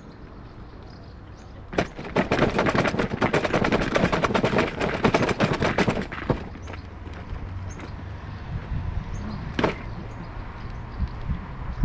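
Bicycle rattling hard over paving stones: a dense, rapid clatter starting about two seconds in and lasting about four seconds. Then a quieter steady rolling rumble, with one sharp knock near the end.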